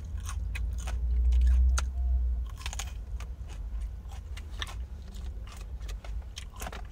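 Crunching bites and chewing of a raw sweet mini pepper close to the microphone, heard as scattered crisp clicks. A low rumble runs underneath and swells about a second in.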